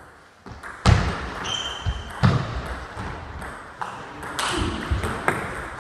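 Table tennis rally: the ball clicking sharply off the bats and the table, several hits spaced about a second apart, each ringing briefly in the hall. A brief high squeak comes about one and a half seconds in.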